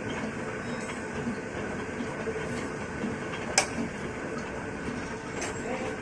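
Shaper machine cutting the internal spline of a built-up cast-iron backhoe planetary ring gear: steady mechanical running of the reciprocating cutter, with one sharp click about three and a half seconds in.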